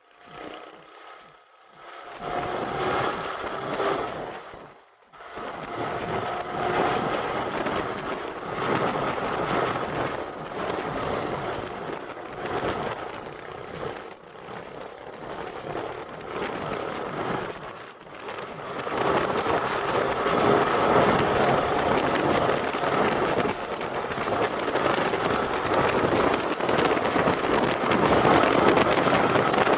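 Wind rushing over the microphone of a camera on a moving motorcycle, with the bike's engine running underneath. The wind grows louder a little past the middle.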